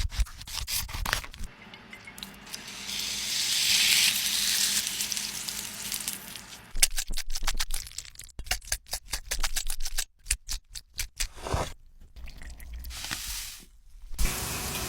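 Kitchen cooking sounds: about two seconds in, a hiss swells and fades over some four seconds, followed by a run of quick clicks and knocks of utensils or food.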